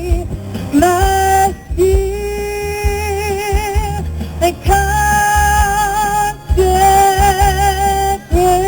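A woman singing a string of long held notes with vibrato, each a second or two long with short breaths between, over backing music with a steady bass.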